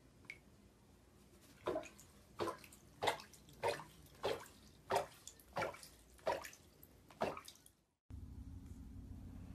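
Water splashing in a shallow bathtub as a duck bathes: about nine sharp splashes at an even pace, a little under two a second. Near the end these give way to a steady low hum.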